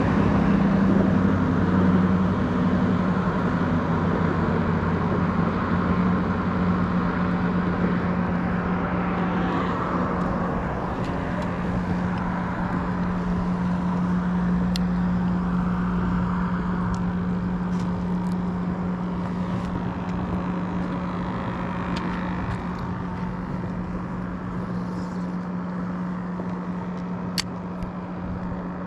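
A steady engine drone: a constant low hum over a wash of noise, easing off slightly toward the end, with a sharp click near the end.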